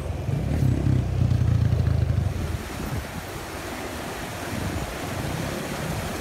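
Water rushing in a concrete canal, heard as an even hiss. For the first two and a half seconds wind buffets the microphone with a loud low rumble, which then drops away and leaves the water sound.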